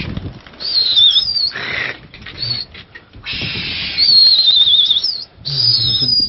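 Long, high, wavering whistles, several in a row, some warbling fast and some sliding up or down, with loud rushes of noise between them; pigeon keepers whistling to their pigeons in flight.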